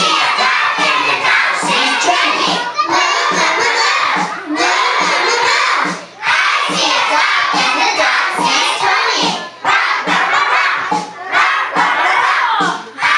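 A group of young children loudly shouting and chanting a song together, with a regular low beat about twice a second underneath and short breaks between lines.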